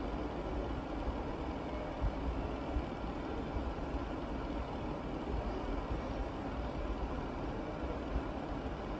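Tap water running into a stainless-steel sink while steel bowls are rinsed by hand: a steady rushing noise, with a couple of light knocks between two and three seconds in.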